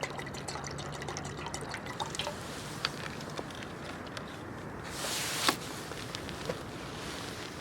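Liquid dripping and trickling in small scattered drops. About two-thirds through there is a short hiss that ends in a sharp click.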